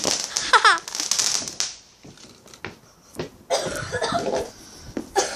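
A child's breathy laughter and coughing, with a short falling squeal about half a second in, then more laughing sounds near the end.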